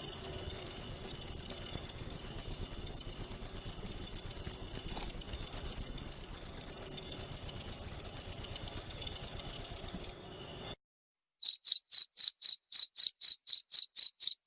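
Crickets: a continuous, very fast trill that stops about ten seconds in, then after a moment of silence a lower, evenly spaced chirping at about four chirps a second.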